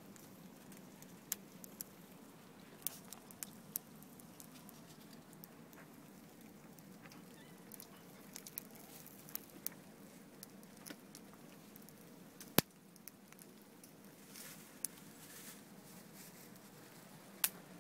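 Meat grilling over charcoal in a kettle grill: scattered crackles and pops over a steady low hum, with a sharp click about two-thirds of the way through and another near the end.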